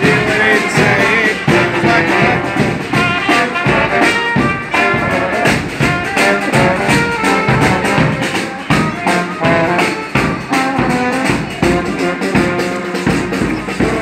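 Marching brass band playing a tune, with a bass drum beating time.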